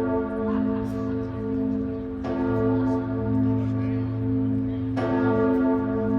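An old church bell tolling slowly, struck twice: a little over two seconds in and again about five seconds in. Each stroke rings on into the next over a steady low hum.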